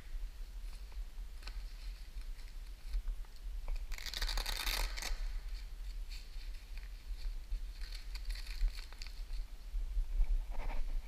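Plastic protective car cover and its tape being peeled and torn off by hand, with crinkling and rustling, loudest in a burst about four seconds in.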